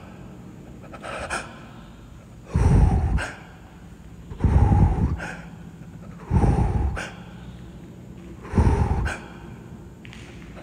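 A person breathing heavily close to the microphone: four loud, deep breaths about two seconds apart, each gusting on the mic.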